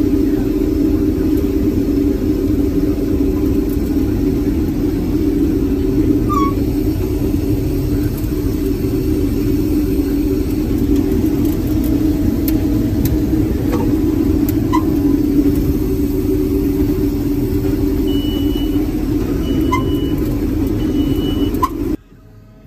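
Combine harvester running while cutting soybeans: a steady engine and threshing drone, with three short high beeps near the end. The drone cuts off abruptly just before the end.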